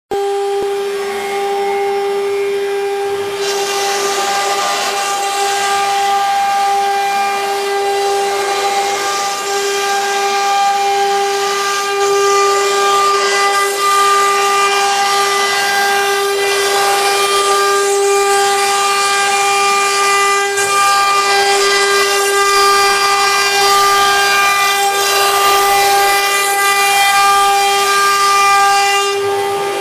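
The two spindles of a two-head CNC wood router running with a steady high whine, while the bits cut through a wooden sheet with a rushing hiss that comes in about three and a half seconds in.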